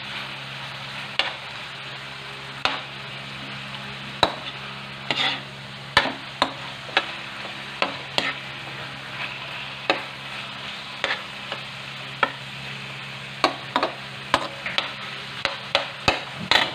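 A metal ladle stirring and scraping in a metal wok, knocking against the pan in irregular clicks about once or twice a second. Underneath runs a steady sizzle of chicken and onions frying in tomato paste, over a low steady hum.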